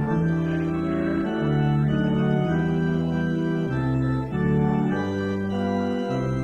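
Organ playing a postlude at the close of the service: full sustained chords that change every second or so over held low bass notes.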